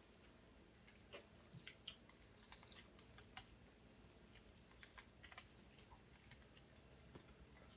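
Faint eating sounds: chewing, heard as scattered, irregular soft clicks.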